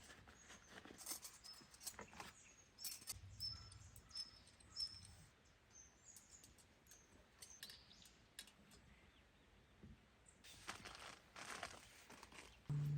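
Faint forest ambience: a small bird gives a series of short high chirps, about six in a row, among scattered light rustles and clicks. A low steady hum starts suddenly right at the end.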